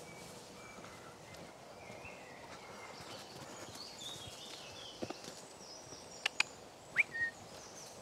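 Woodland birdsong: scattered short chirps and whistles, with two sharp ticks a little after six seconds and a quick rising call about seven seconds in, over faint footsteps on a dirt path.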